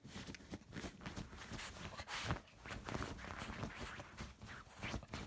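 A small dog scratching and digging at a duvet with its paws, the fabric rustling in quick, irregular strokes.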